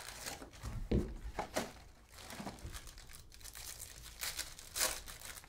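Foil trading-card pack wrappers crinkling as packs are handled, and a foil pack being torn open, with irregular crackles.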